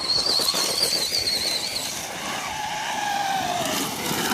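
Electric radio-controlled cars driving hard, with a high motor whine that wavers for about the first two seconds and tyre noise on the ground. A lower whine slides slowly down in pitch in the middle.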